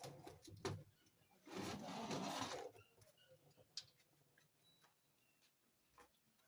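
Metal parts of an electric steering column assembly being handled: a few sharp clicks, then a scraping slide lasting about a second as a part is worked out of the assembly, followed by faint ticks.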